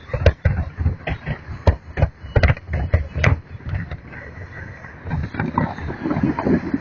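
Fireworks going off in a rapid, irregular string of bangs and crackles, several a second, with a low rumble between them.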